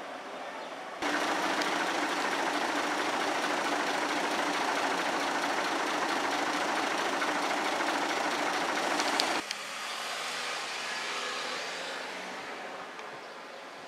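Odakyu electric train running past close by, a loud steady rush of wheels on rails that cuts in sharply about a second in and cuts off sharply after about eight seconds. A quieter rumble follows, swells briefly and fades away.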